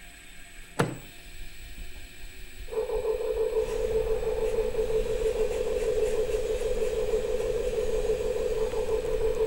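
A single knock about a second in, then a steady hum that starts just under three seconds in and holds even: the spinning casting machine's bowl turning under its motor.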